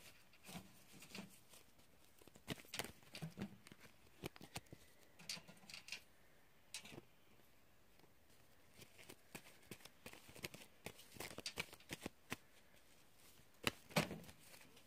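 Tarot cards being shuffled and handled: a scatter of soft, irregular snaps and clicks, with a short lull in the middle.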